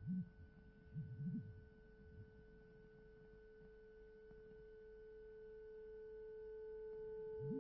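A steady pure tone held throughout and slowly growing louder, with low wavering pitch glides under it in the first second and a half. It is a sustained tone in a contemporary piece for solo percussion and electronics.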